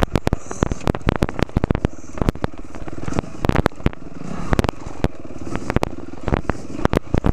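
Four-stroke dirt bike engine running as it climbs a rough, rutted dirt trail, with many sharp, irregular knocks and clacks over it.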